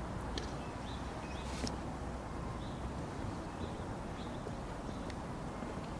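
Outdoor ambience: a steady low rumble of wind on the microphone, with a few faint, short bird chirps scattered through it.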